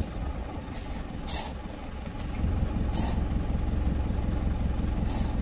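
Truck engine idling steadily, with a low rumble that grows louder about halfway through. Over it, three short slurps of noodles being sucked in with chopsticks, spaced about two seconds apart.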